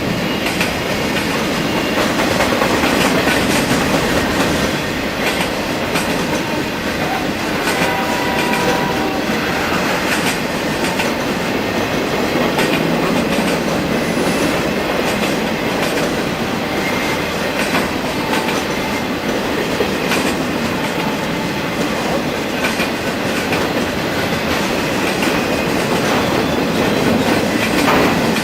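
Union Pacific freight train rolling past, its cars' wheels clicking steadily over the rail joints amid continuous rumbling noise.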